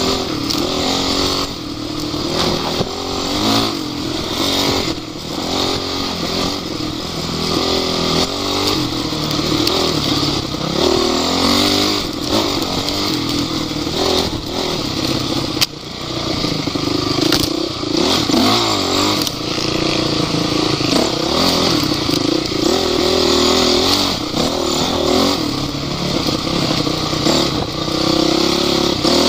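Off-road vehicle engine running hard, revving up and down again and again as it works over rough ground.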